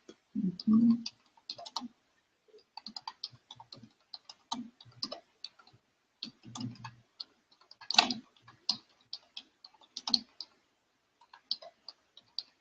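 Typing on a computer keyboard: irregular runs of keystrokes with short pauses. A short, louder low sound comes about half a second in.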